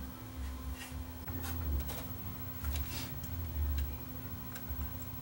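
Scattered small clicks and taps of plastic parts and ribbon cables being handled and pushed into circuit-board connectors on a stereo's tape-deck section.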